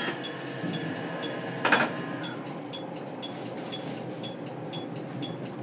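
Inside a JR Kyushu 817 series electric train car: a rapid run of short, high electronic beeps, about four a second, over a low steady cabin hum, with one brief sharp hiss of air about two seconds in.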